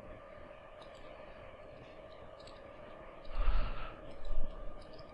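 Quiet room tone with a faint steady hum and a few faint clicks, then a man's heavy sigh about three seconds in, followed by a shorter breath.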